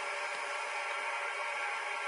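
Toilet water running with a steady hissing rush.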